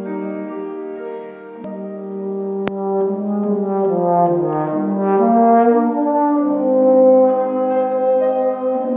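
A solo brass instrument plays a slow melody of long held notes, accompanied by a piano.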